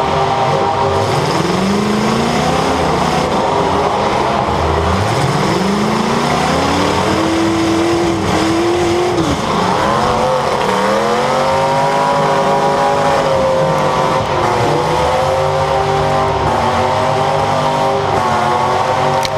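Demolition derby car engines running flat out, heard from on board one of the cars: one engine's pitch climbs as it revs hard, drops sharply about nine seconds in, then climbs again, while other engines run underneath.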